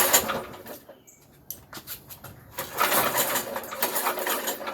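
Vintage 5 hp Briggs & Stratton flathead engine being pulled over on its recoil starter with the spark plug out, in a spark test. There is a short burst of cranking at the start, then a longer stretch of cranking about two and a half seconds in.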